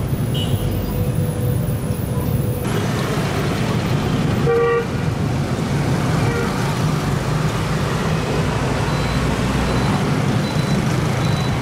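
Dense street traffic of motorbikes and scooters running past, with a vehicle horn honking briefly about four and a half seconds in.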